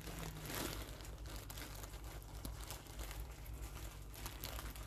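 A clear plastic bag crinkling as it is handled and opened, a continuous run of small crackles.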